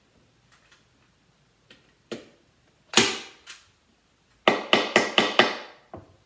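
Sharp knocks with a metallic ring, like metal being struck: a couple of separate strikes, then five quick ones in about a second.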